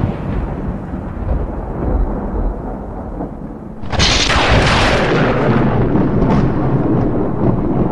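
Thunder during a lightning storm: a rolling rumble dies down, then a sudden loud thunderclap about four seconds in rumbles on.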